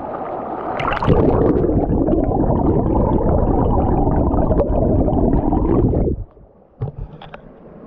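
A small stream's flowing water heard with the microphone submerged in the current. About a second in it turns to a loud, muffled rush and gurgle of water with little high end, and shortly after six seconds it falls away to quieter splashing with a few small knocks.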